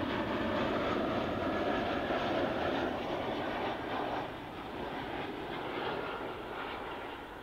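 Jet engines of a landing Airbus A321-111, a pair of CFM56-5B turbofans, heard as a steady jet rush that fades away as the aircraft moves off, dropping noticeably about four seconds in.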